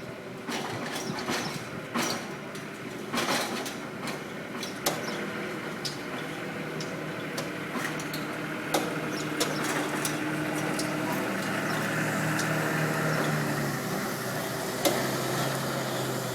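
Machinery running steadily, most likely the sling hoist or a boat engine, with scattered metal knocks and clanks. Its low hum steps down in pitch near the end, just after a sharp clank.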